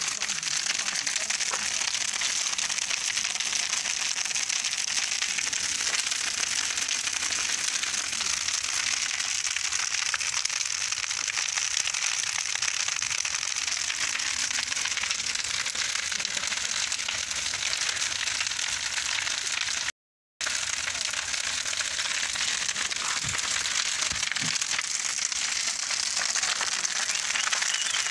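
Large wooden bonfire burning, a steady dense crackling and hissing of the flames. The sound breaks off for a moment about two-thirds of the way through.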